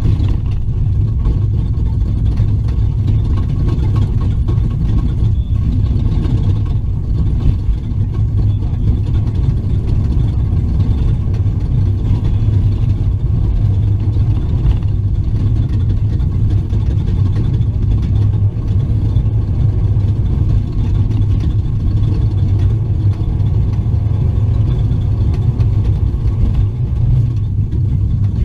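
Off-road race truck running steadily under way, heard from inside the cab: a loud, even low engine and drivetrain drone with a few faint knocks over the rough ground.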